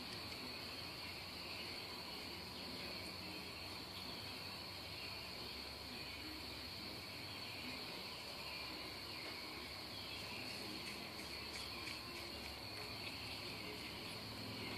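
Crickets chirping in a steady, high, unbroken trill.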